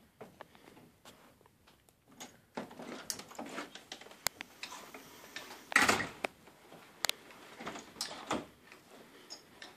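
A wooden front door being opened and shut from its handle and latch: scattered clicks and knocks, with the loudest burst about six seconds in.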